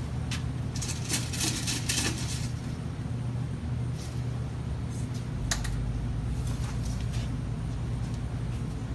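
Scattered light clicks and rattles of small items being handled, over a steady low machine hum that grows deeper about five and a half seconds in.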